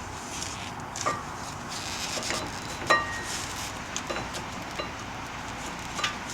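Sharp metallic clicks and clinks, about seven of them, the loudest about three seconds in with a short ring, as new brake pads with spring clips are worked into the rear brake caliper of a 2004 Audi A4, over steady background noise.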